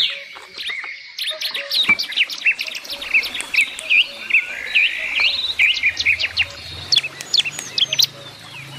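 Several songbirds chirping and singing together, a busy run of quick sweeping chirps and trills, with a faint low hum coming in about three seconds in.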